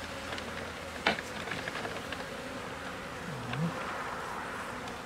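Honeybees buzzing steadily in an open hive while a wooden frame is pried up and lifted out. A sharp wooden knock about a second in, a few lighter ticks, and a single bee's hum that dips and rises near the middle.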